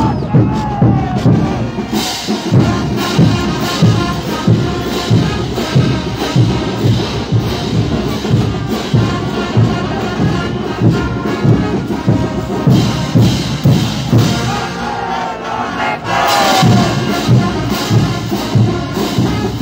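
Morenada brass band playing, with a steady bass drum beat about twice a second, mixed with crowd shouting and cheering that swells about three-quarters of the way through.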